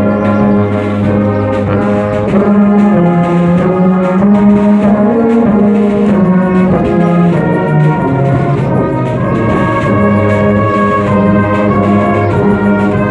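Brass band of tubas, euphoniums and horns playing together: held chords that change every second or so, over a strong, steady low bass line.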